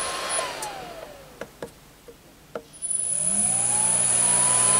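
A 1 hp three-phase induction motor on an XSY-AT1 variable frequency drive, jogged at 20 Hz. Its whine falls in pitch as it ramps down to a stop about a second in. A few light clicks follow, then the whine rises again as the motor ramps back up to a steady jog speed near the end.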